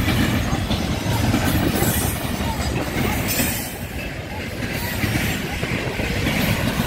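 Container freight train passing close by at speed: the steady rumble of its flatcars' wheels running over the rails.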